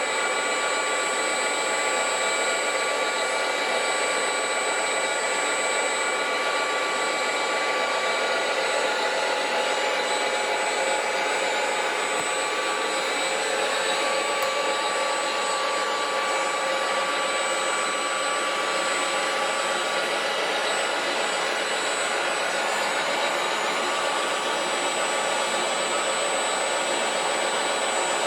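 Small electric motors and geared drives of radio-controlled scale construction models running steadily, a high whine with several steady tones over a hiss.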